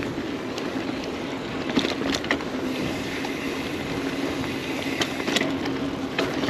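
Giant Talon 4 hardtail mountain bike riding along a dirt trail: a steady rushing noise with a low hum, broken by several sharp clicks and knocks from the bike over bumps.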